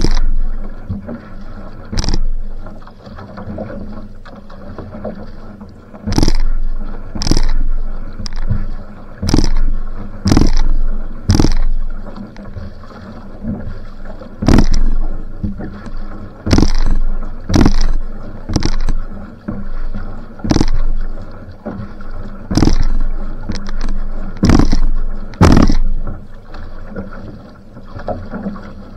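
Outrigger canoe (va'a) paddled at sprint pace: a single-blade paddle splashes into the water beside the hull with each stroke, unevenly about once a second, over steady water noise along the hull.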